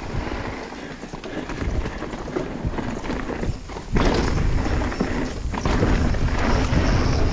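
Mountain bike rattling and clattering over rough rocky trail, with a steady rush of wind noise; the rattle and rush jump sharply louder about four seconds in.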